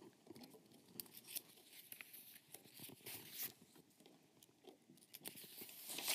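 Faint rustling and crinkling of paper sheets being handled and turned, with small clicks scattered throughout, loudest in a burst near the end.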